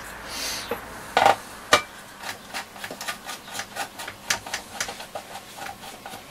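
A screwdriver working at the small screws inside a transistor radio's metal chassis: two sharper knocks about a second in, then a quick run of small metallic clicks, several a second.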